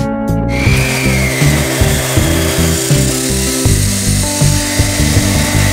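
Abrasive cut-off saw cutting through a rusty square steel tube. It starts about half a second in and sounds as a steady grinding hiss with a whine, over background guitar music.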